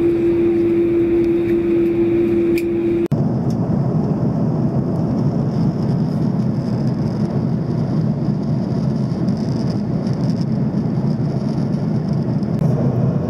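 Airliner cabin noise in flight: the steady rush of engines and airflow. A steady hum tone runs over it for about the first three seconds, then the sound changes abruptly to a deeper, even rush.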